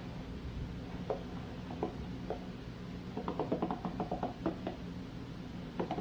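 Light clicks and knocks of hard hairbrushes being handled, scattered singly and then in a quick cluster in the middle, over a low steady hum.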